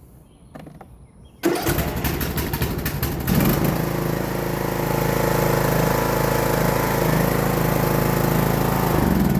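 Riding mower's Briggs & Stratton 17.5 hp engine being started: the electric starter cranks it for about two seconds, it catches, and it then runs steadily until it dies away at the very end.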